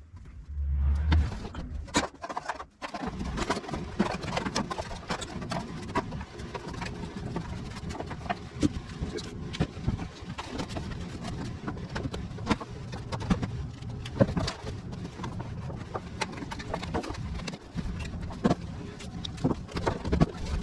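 Irregular small knocks, clicks and rustling from hands-on work with materials, over a low steady hum.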